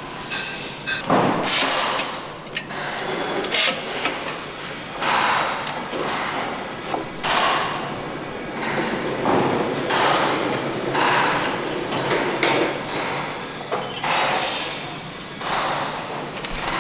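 Engine assembly hall noise: irregular knocks and clanks with short bursts of noise from tools and equipment, coming about every one to two seconds.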